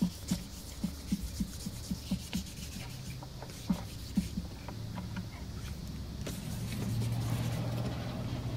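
Wet sanding a plastic headlight lens by hand with fine (1500-grit) sandpaper on a block: soft, fairly regular strokes. Under it is a low steady hum that grows louder in the second half.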